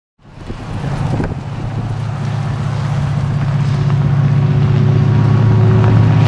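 Steady low diesel engine drone from the approaching Canadian Pacific train's locomotives, growing slowly louder, over road traffic passing close by.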